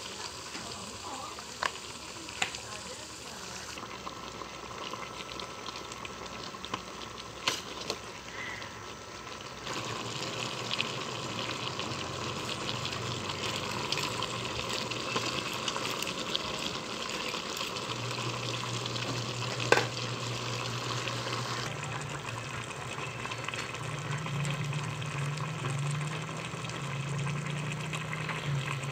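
Squash, string beans and shrimp sizzling and simmering in coconut milk in a pot, a steady hiss that grows louder about ten seconds in. A few sharp clicks sound along the way, the loudest about twenty seconds in, and a low hum joins past the middle.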